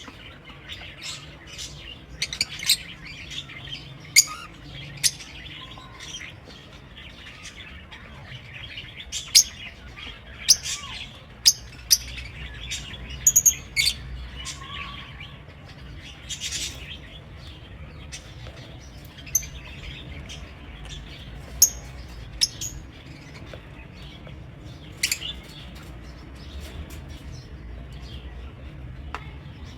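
Lovebirds chirping: many brief, high, sharp calls at irregular intervals, a few much louder than the rest, over a faint steady low rumble.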